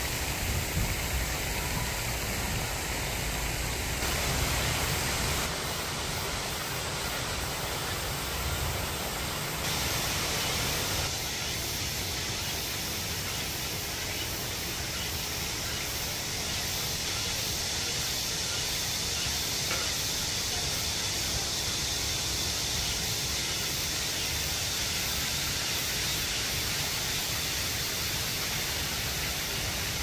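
Steady rushing of a mountain stream, a continuous even hiss that changes tone abruptly a few times.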